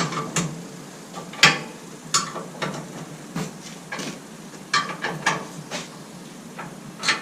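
Metal tools and parts clinking and knocking against metal, several sharp clanks at irregular intervals.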